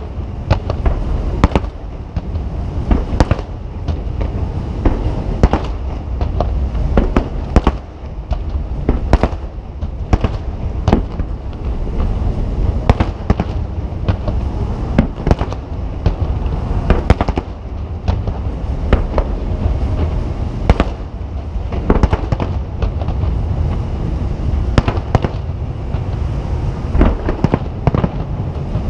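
Japanese aerial firework shells bursting: an irregular string of sharp booms, often several a second, over a continuous low rumble of echoing explosions.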